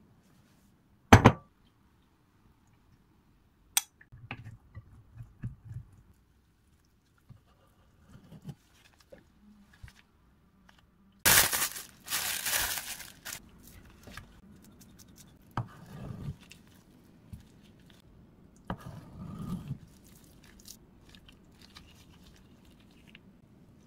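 Plastic bag crinkling loudly for about two seconds as a raw salmon fillet is unwrapped on a wooden cutting board, amid kitchen handling noises: a sharp click about a second in and a few soft knocks of the fish being handled near the end.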